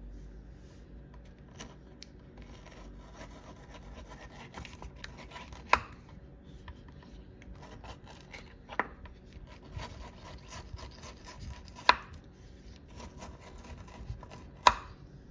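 Aloe vera leaf being filleted on a wooden cutting board: soft scraping and rubbing as the gel is worked off the skin, broken by four sharp knocks on the board about three seconds apart.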